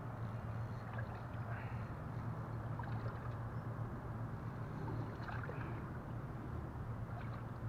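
A steady low hum under a faint, even wash of water noise around a small fishing boat, with a few faint ticks scattered through it.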